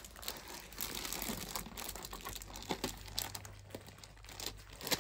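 Clear plastic bag crinkling as a computer keyboard is slid out of it: a steady run of irregular crackles, with a few sharper ones near the end.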